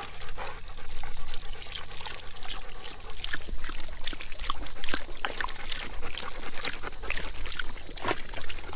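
Water trickling from the spout of a yard hydrant while dogs lap at it, with many short wet licking clicks over the steady run of water.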